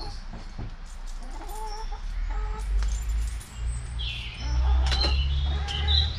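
Backyard hens clucking in short calls, over a low rumble that grows louder about halfway through, with a few sharp clicks.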